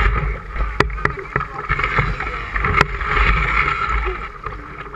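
River water rushing and splashing past a canoe running shallow riffles, with a low rumble of wind on the microphone. Three sharp knocks: two close together about a second in, one near three seconds.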